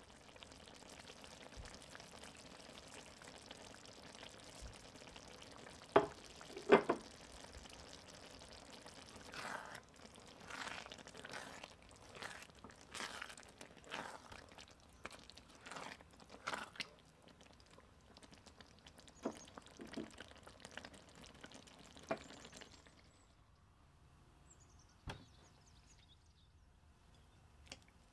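Eggplant and tomato stew simmering and bubbling in a stainless steel pan, with two sharp knocks about six seconds in. A spatula then stirs through the thick stew and scrapes the pan for several seconds, followed by a few light taps, and the sound dies down near the end.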